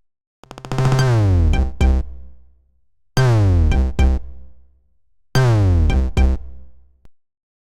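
Android phone ringtone: an electronic loop of a falling synth glide over drum-machine hits, heard three times, then cutting off abruptly shortly before the end.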